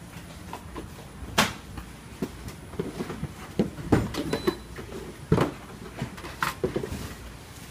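Plastic outdoor-CPE housings with their circuit boards knocking and clattering as they are handled in a plastic crate: a string of irregular sharp knocks and clicks, the loudest about one and a half, four and five and a half seconds in.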